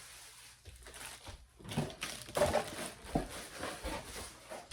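Toiletry items and packaging being handled: rustling and crinkling with several light knocks and clicks around the middle.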